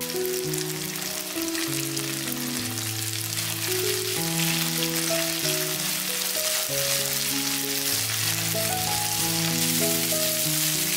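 Chopped zucchini and red bell pepper sizzling as they fry in a frying pan, a steady dense crackle. Background music with slow, held notes plays underneath.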